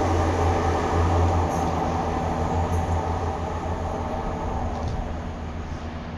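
Loram C21 rail grinding train running along the track with a steady low engine hum and rolling noise, fading gradually as it moves away.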